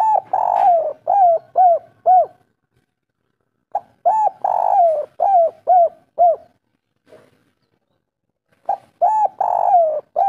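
Spotted dove cooing its three-'kuk' (kuk 3) song. Each phrase is a short note, a longer coo, then three short falling 'kuk' notes, and the phrases come about every four and a half seconds: two full phrases, then a third beginning near the end.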